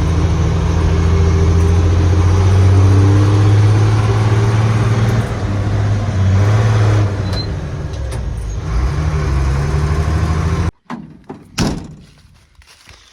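Grain truck engine running steadily while driving, loud and low. It cuts off abruptly near the end, followed by a single thump.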